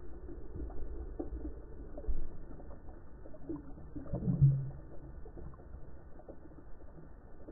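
Underwater ambience picked up by a submerged camera: a low rumble of moving water with scattered small clicks. There is a single knock about two seconds in and a short low tone just after four seconds, the loudest moment.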